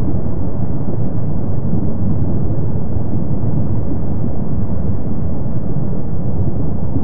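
Continuous low rumble of erupting lava, steady and loud, with no separate blasts.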